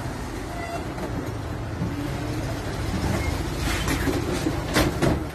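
Low steady rumble of an idling vehicle engine, with a few sharp knocks and clatters from about three and a half seconds in as a car door is opened.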